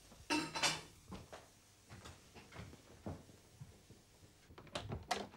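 Wooden door being handled: two sharp clicks close together just after the start, soft scattered thuds in the middle, and another quick cluster of clicks and knocks near the end.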